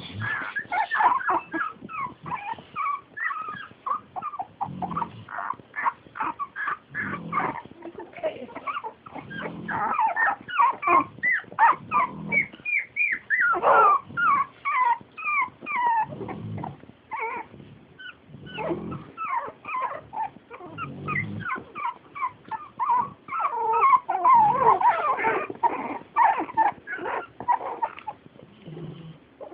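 A litter of Jack Russell terrier puppies whimpering and squeaking without pause. Under them, a pig snores in slow low snores about every two seconds.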